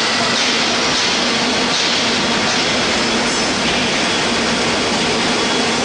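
Industrial vegetable dicing line running: the dicing machine and its feed conveyor give a steady, loud mechanical din with a faint hum.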